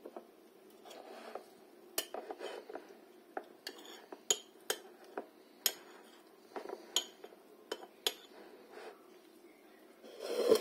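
A spoon clinking against a bowl or dish: a dozen or so sharp, irregular clinks. Near the end comes a louder scrape.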